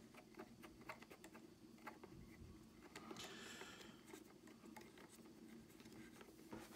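Faint small clicks of plastic parts being handled while a screw is unscrewed to free an action camera from its mount in the packaging, with a brief rustling scrape about three seconds in.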